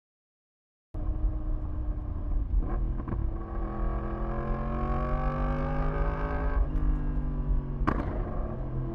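2015 Yamaha R1M's crossplane inline-four engine under way, cutting in abruptly about a second in. It pulls up through a gear with rising pitch, drops at a gear change a little after the middle, then runs on steadily, with a few sharp clicks over it.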